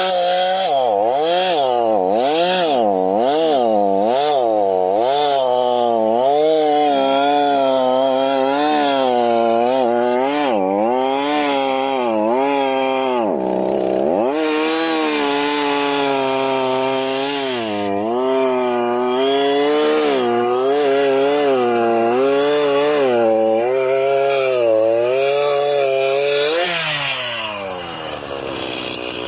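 Gas chainsaw cutting up a fallen oak, the engine pitch rising and falling continually as it works through the wood. The revs dip sharply for a moment just before halfway, and the pitch slides down about three seconds before the end.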